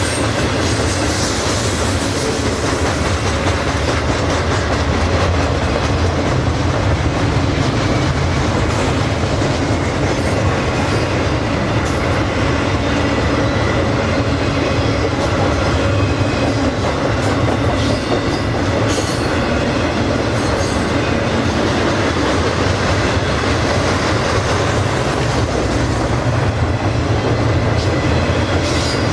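Freight cars of a long garbage train rolling steadily past. There is a continuous heavy rumble of wheels on rail, with scattered clicks as the wheels cross rail joints.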